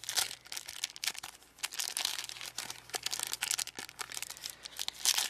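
Foil wrapper of a 1996 Fleer X-Men trading-card booster pack crinkling in quick, irregular crackles as fingers pick and pull at it to open it. The wrapper is not opening easily.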